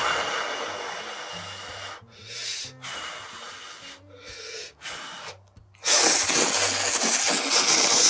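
Blowing on hot ramen noodles held up on chopsticks in several short puffs, then a long, loud slurp of the noodles starting about six seconds in.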